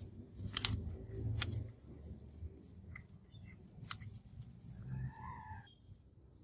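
Paper template being handled and pressed onto a steel leaf spring: soft rustling with a few light clicks and taps of metal, over a faint low rumble. A brief faint tone sounds about five seconds in.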